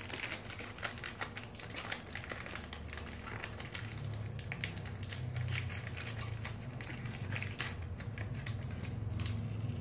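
Irregular small clicks and crinkles of plastic packaging and Beyblade toy parts being handled and opened by hand, over a low steady hum.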